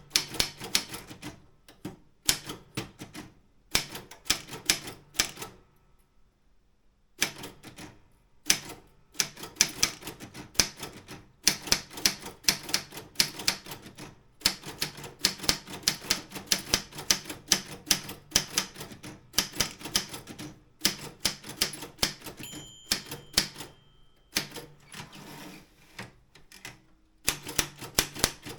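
Optima M16 typewriter being typed on: fast runs of sharp key and typebar strikes with short pauses between bursts. A short ringing tone sounds about three-quarters of the way through.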